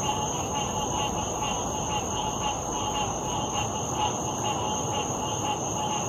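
Dense chorus of many frogs calling over one another, a continuous pulsing wash of calls, with a steady high-pitched trill above it.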